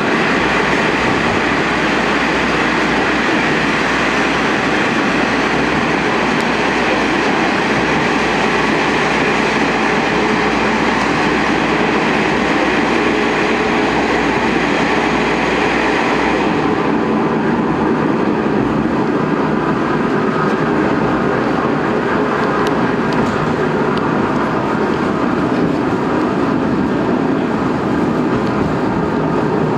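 Steady running noise of a train coach pulled by steam locomotive C58 239, heard from inside the carriage: a continuous rumble and rattle of wheels on track. It is brighter and hissier for the first sixteen seconds or so, then turns duller.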